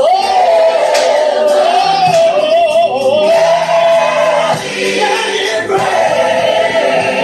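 Gospel choir singing with accompaniment: one voice carries long, wavering held notes that bend up and down over the choir.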